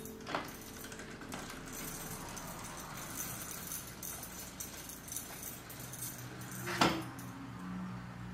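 Light jingling of small metal objects being handled, with a few sharp clicks; the loudest is a knock a little before seven seconds in.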